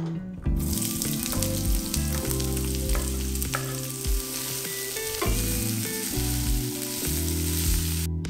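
Sliced onion sizzling as it fries in hot olive oil in a frying pan, stirred with a wooden spatula that clicks and scrapes against the pan now and then. The sizzle starts about half a second in and cuts off suddenly just before the end.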